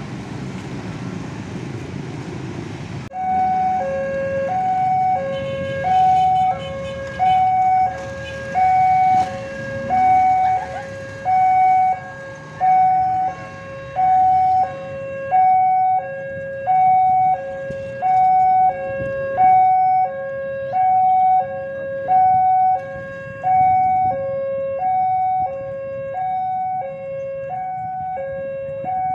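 Railway level-crossing warning alarm sounding: an electronic signal alternating between a higher and a lower tone, each held a little under a second. It warns that a train is approaching and the barrier is closing. For the first three seconds, before the alarm starts, there is a rumble of road traffic with motorcycles passing.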